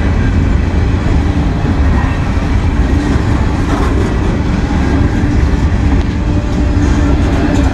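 CSX freight train's loaded centerbeam flatcars rolling past close by: a loud, steady rumble of wheels on rail.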